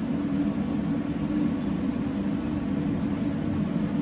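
A steady low mechanical drone that stays the same throughout.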